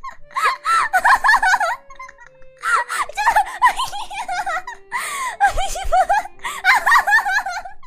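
High-pitched giggling laughter in four bursts of a second or two each, with short pauses between, over soft background music with held notes.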